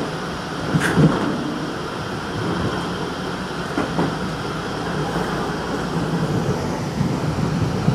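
Tobu 30000-series electric train running, heard from inside the driver's cab: a steady rumble of wheels on rail, with a few sharp clacks about a second in and again around four seconds.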